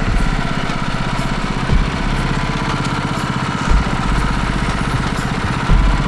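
Gasoline engine of a Woodland Mills HM130MAX portable band sawmill running steadily, with three low thumps about two seconds apart.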